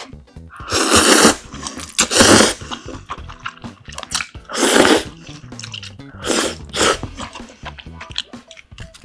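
Ramen noodles slurped up loudly from chopsticks, several long slurps a second or two apart, with wet chewing between them.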